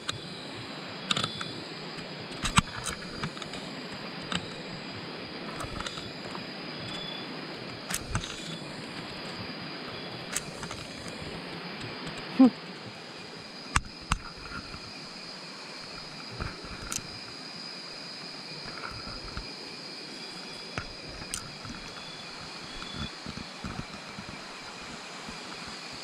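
Steady high chirring of night insects over the hiss of running stream water, with scattered sharp clicks and small splashes as someone moves through the water. A short falling call stands out about twelve seconds in.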